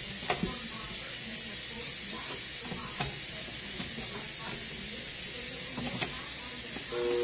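Kitchen tap running with a steady hiss, with a few light knocks of a spatula against a steel mixing bowl. Just at the end a KitchenAid stand mixer's motor starts with a steady whine.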